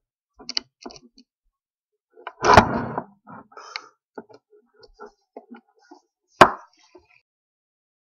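Small clicks and rattles from a disassembled VW Mk5 seatbelt retractor being handled and its lever worked with a pen. A louder clunk comes a little past two seconds in, and a single sharp knock about six seconds in.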